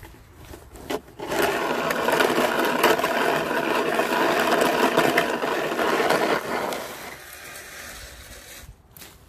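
Plastic snow shovel blade scraping along pavement as it pushes a load of snow: a rasping scrape that starts about a second in, runs for about five seconds and fades out.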